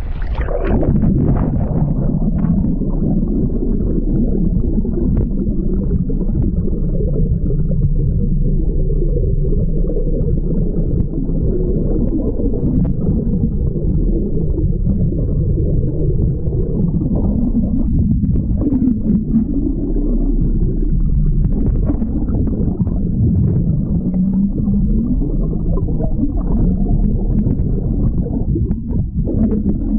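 Muffled rumbling and gurgling of water around a submerged camera's housing, heard underwater. The higher sounds fall away about a second in as the camera goes under, leaving a steady deep rumble.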